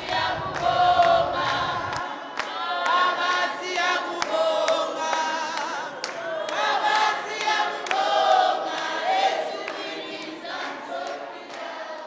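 Credits music: a group of voices singing together, choir-like, with sharp percussive clicks through it, fading out near the end.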